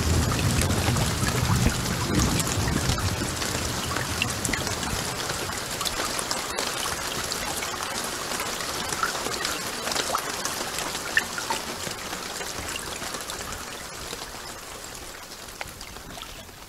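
Rain sound effect played over a theatre's sound system: a steady hiss of rain with scattered drops, fading slowly down. A low rumble dies away in the first few seconds.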